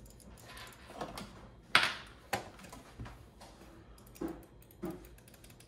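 Handling noise on a desk: about five separate sharp clicks and light knocks as a mouse box, a knife and a computer mouse are picked up and set down, the loudest a little under two seconds in.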